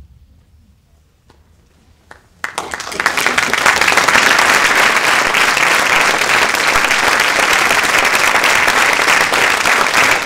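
Theatre audience breaking into applause at the end of the performance, after about two seconds of quiet in the blackout, then clapping steadily and loudly.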